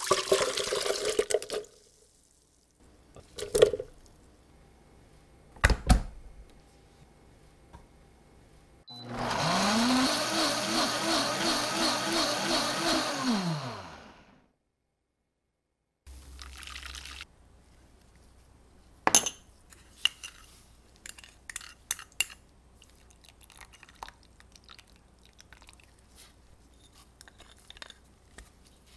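Red chili peppers and water tipped into a blender jar with a short clatter, then a couple of knocks. About nine seconds in, the countertop blender motor spins up with a rising whine, runs for about five seconds with a steady pulsing as it purées the peppers, and winds down. Light scattered taps and clinks of a wooden spoon and glass in a steel mixing bowl follow.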